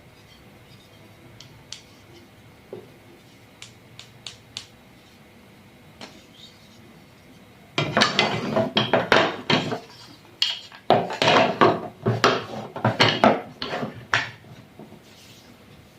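A few light scattered clicks and taps, then from about eight seconds in a few seconds of dishes and cutlery clattering and clinking against each other, with a short pause around ten seconds.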